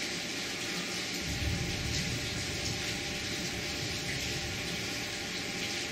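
Steady background hiss with a faint hum of room noise, and a low rumble starting about a second in.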